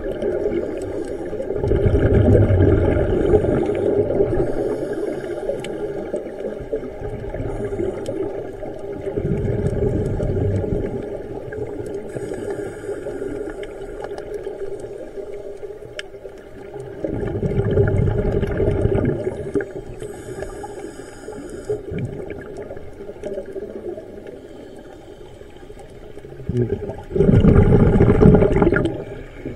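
Scuba diver's regulator breathing underwater: four bubbling exhalations, each about two seconds long and spaced about eight seconds apart, with a thin hiss of inhalation between them.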